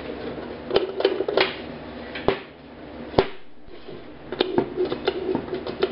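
A TIG welder foot pedal pressed down by hand and let spring back, giving scattered plastic clicks and knocks, the sharpest about three seconds in, over a steady low hum.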